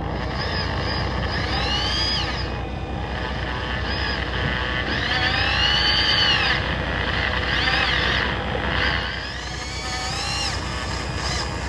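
Electric fishing reel winding in a hooked fish: its motor whine rises and falls in pitch about four times as the fish pulls against it, over the steady low hum of the boat's engine.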